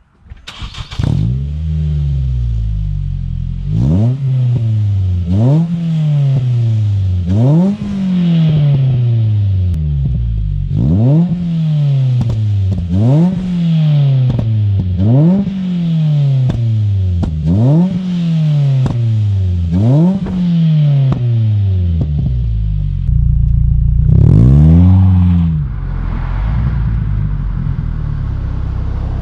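Ford Fiesta ST150's 2.0-litre four-cylinder engine through a full stainless custom exhaust, revved over and over, about once every two seconds. Each time the pitch jumps up sharply and falls back, with crackles and pops from the exhaust as the revs drop.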